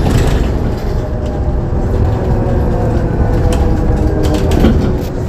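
Ikarus 412GT trolleybus standing at a stop with its equipment running: a steady low rumble with faint even hums and a few short clicks.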